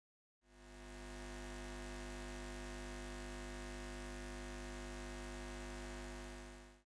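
A steady low electric hum of several held tones. It fades in about half a second in and fades out just before the end.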